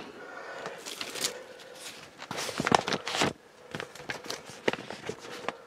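Paper and packaging being handled as an instruction sheet is pulled out: irregular rustling with small knocks, busiest about two and a half to three seconds in.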